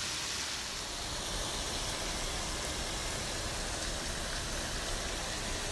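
Shrimp frying in a pan of garlic butter and lemon sauce, a steady sizzle.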